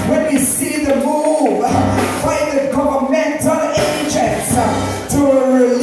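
A woman singing a gospel praise song into a microphone, backed by an electric keyboard.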